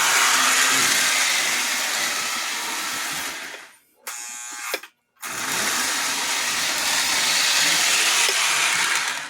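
1950s Lionel toy diesel locomotive running on the track, its electric motor and gearbox whirring steadily. The whir drops out briefly about four seconds in, resumes, and cuts off abruptly near the end; the gearbox is running freely rather than locked up.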